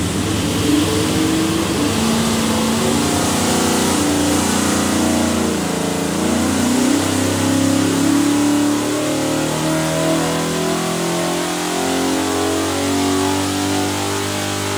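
A 489ci big block Chevy V8 stroker (454-based, built for marine use) running loud under load on an engine dyno during a power pull, its pitch shifting as the revs change.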